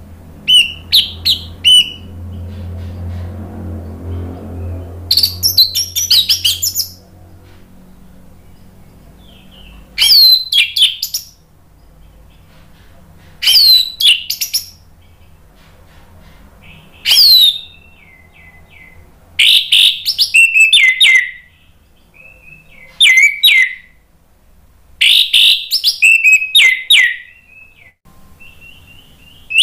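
Orange-headed thrush singing in full voice: a run of about eight loud, varied, fast whistled phrases, each a second or two long, with short pauses between them.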